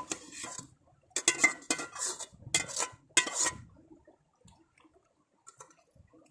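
Metal cooking vessels clanking and scraping as boiled tapioca is tipped into a large pot of beef masala: a sharp clink at the start, then four or five clattering, ringing bursts over about two and a half seconds.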